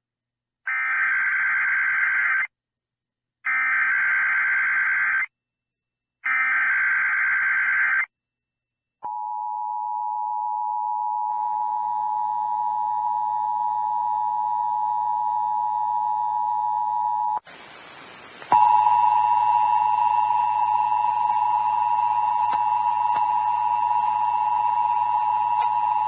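Emergency Alert System test over an AM radio broadcast: three short bursts of rapid digital warbling, the SAME data header, followed by the steady two-tone EAS attention signal. The attention tone breaks off for about a second of hiss partway through, then resumes and holds to the end.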